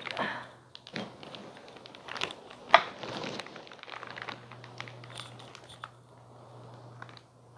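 Plastic bag crinkling and rustling, with foam packing peanuts shifting, as a bagged acrylic overflow box is handled in its shipping carton. A single sharp click stands out a little under three seconds in.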